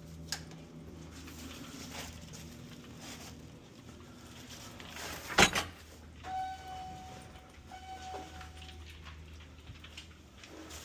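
A door shutting with one loud thump about five seconds in, over a low steady hum, followed by a steady electronic tone that holds for about two and a half seconds with a short break.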